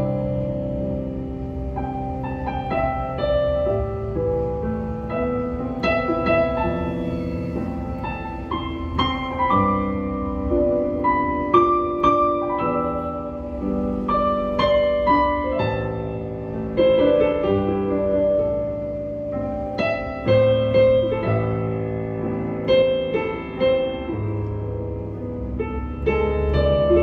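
Yamaha YDP-165 Arius digital piano playing a piece, with a melody over sustained bass notes and chords.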